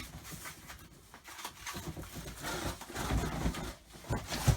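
Cardboard box and packaging rustling and scraping as a heavy pressure washer is handled and lifted out, with a knock near the end.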